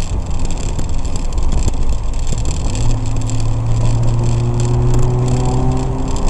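Turbocharged 2.0-litre car engine heard from inside the cabin, with road noise from tyres on a wet road. About three seconds in, a steady engine drone comes up and slowly rises in pitch as the car gathers speed.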